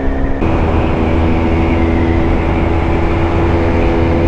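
KTM RC 125's single-cylinder four-stroke engine running at a steady pitch while the bike cruises, over wind rush on the onboard microphone. About half a second in the sound changes abruptly to a louder, fuller note, then holds steady.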